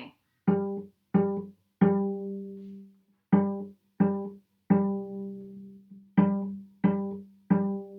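Cello D string plucked pizzicato with all four left-hand fingers pressed down, sounding G. There are nine plucks on the same note in three groups of three, and the third pluck of each group rings on longer.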